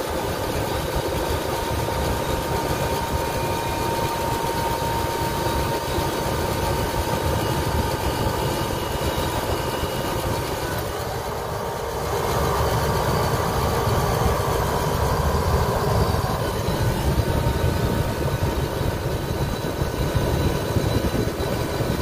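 Refrigeration condensing unit running steadily, compressor and condenser fan with a low hum and a thin steady whine. It runs with its stuck-open high pressure switch jumpered out. It dips briefly just before halfway, then runs a little louder.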